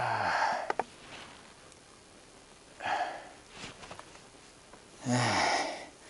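A man breathing out heavily three times, about two and a half seconds apart. The first and last breaths start with a low groan of voice that drops in pitch.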